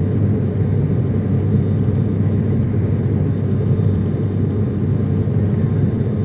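Steady low rumble of an airliner's engines and rushing air heard inside the passenger cabin as the plane climbs.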